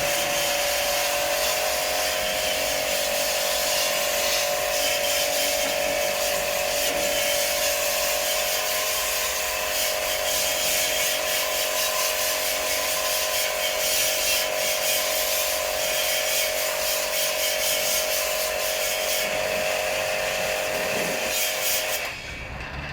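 An electric motor runs steadily with a constant whine over a hiss, then stops suddenly near the end.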